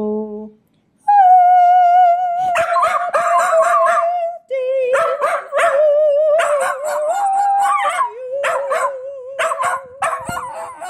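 Keeshond dog howling in long, wavering howls with short yips mixed in, starting about a second in and breaking briefly twice.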